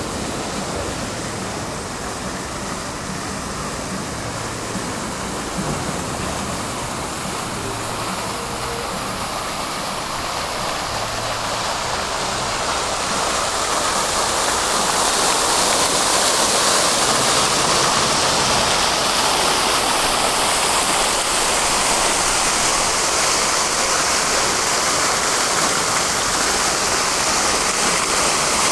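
Tram running along the rails, a steady rushing rolling noise that grows louder and brighter about halfway through.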